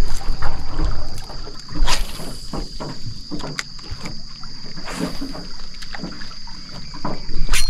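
Casting and retrieving a lure from an aluminium fishing boat: scattered clicks and knocks from the rod, reel and hull, with a louder crack about two seconds in and another near the end, over a steady high-pitched whine.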